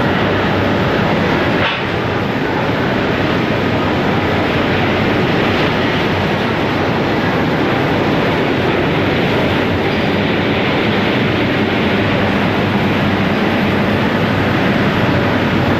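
Industrial machinery of a reheating-furnace pulverizer plant running: a loud, steady, even roar with a faint hum held under it.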